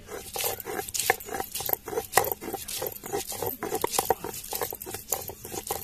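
Ginger being ground into paste with a stone roller on a flat stone slab (shil-nora): a fast, uneven run of gritty scraping and knocking strokes as the stone rocks back and forth.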